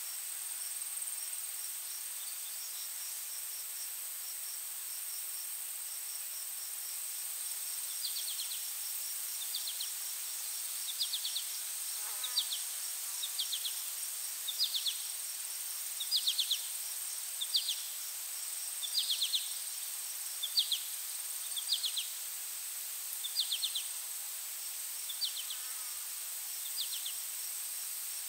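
Steady high-pitched electrical buzz from a camera microphone plugged in backwards, which recorded no real sound. From about eight seconds in, short chirps repeat roughly once a second over the buzz.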